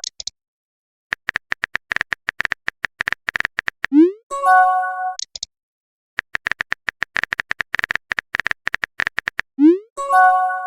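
Phone texting sound effects, twice over: a few seconds of rapid keyboard tap clicks, a quick rising swoosh as the message is sent, then a short notification chime.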